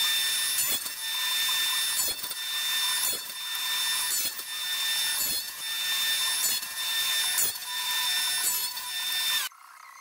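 Table saw with a dado stack running and cutting box-joint fingers into the end of a wooden board on a box-joint jig, with a short change in the cutting sound about once a second as each notch is cut. The saw sound cuts off abruptly shortly before the end.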